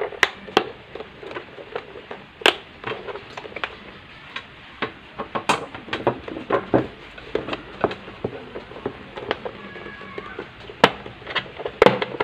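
Plastic housing of a Philips blender's motor base being pried apart by hand: irregular clicking and a few sharp snaps as the plastic clips give.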